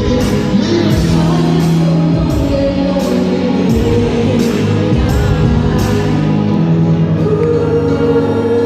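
Live concert music played loud over a hall PA: a steady beat with sustained bass and keyboard notes and a sung vocal line, with a hall echo.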